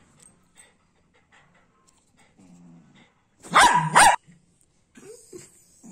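A dog barks twice in quick succession, loud and sharp, about three and a half seconds in; before that there are only a few faint ticks.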